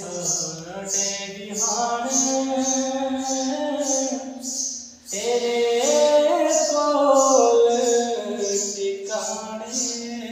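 A man singing a devotional Sufi verse unaccompanied, in long held notes that glide and waver, with a short break for breath about five seconds in.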